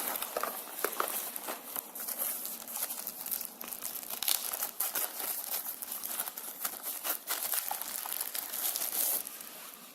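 Packaging crinkling and rustling, with irregular small clicks, as a boxed USB hub is unpacked by hand; the handling stops about nine seconds in.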